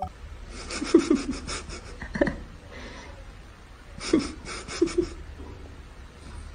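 Two bouts of rapid, pulsing panting-like breaths, about a second in and again about four seconds in, over a steady low hum.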